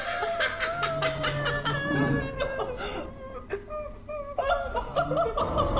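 A long held note that wavers slightly and breaks off briefly near the end, over a run of sharp clicks and crackles.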